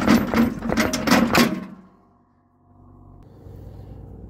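Quick metal clicks and knocks from a Toro TimeCutter mower's front deck-hanger bar and its washer being pushed out of the bracket. The knocking stops a little under two seconds in, leaving a faint hum.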